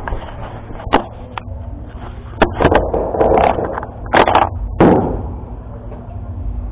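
Knocks, clicks and rustling close by as a motorcycle rider climbs off and handles gear, loudest in a cluster a few seconds in, over a low steady rumble.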